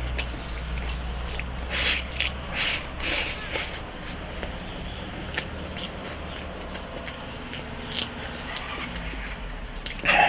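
A person eating close to the microphone: chewing and smacking mouthfuls of rice with cured pork and potato, with a run of louder noisy bursts about two to four seconds in as food is shovelled from the bowl. Short clicks of chopsticks against the ceramic bowl come throughout.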